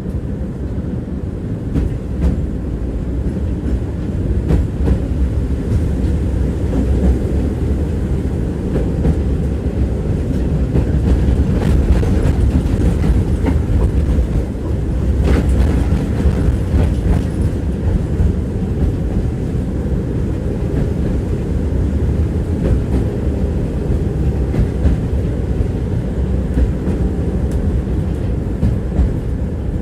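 Tram running along its track, heard from inside the car: a steady low rumble from the wheels on the rails, with scattered clicks and knocks from the wheels over rail joints.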